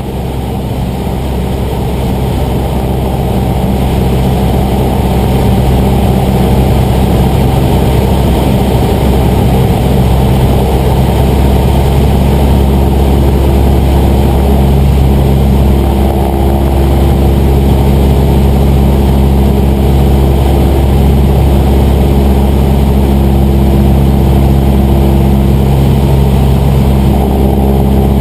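Cessna 150's Continental O-200 four-cylinder engine and propeller running with a steady drone on final approach to landing. It grows louder over the first few seconds.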